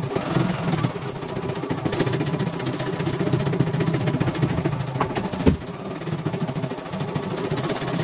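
CNY E900 computerized embroidery machine stitching, its needle bar running in a fast, even rattle while the hoop is driven about. One louder clack comes about five and a half seconds in.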